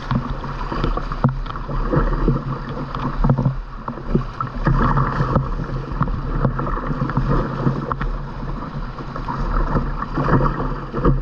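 River water rushing and splashing around a kayak running out of a rapid, with many short splashes of paddle strokes and waves slapping the hull.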